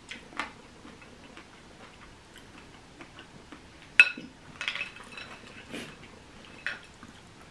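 A spoon clinking and tapping in a bowl: scattered light clicks, with one sharp ringing clink about four seconds in.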